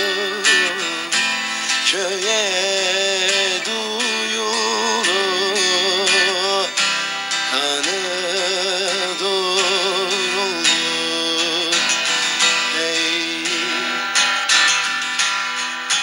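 Background music without words: a plucked string instrument with a wavering melody line over it, in a Middle Eastern folk style.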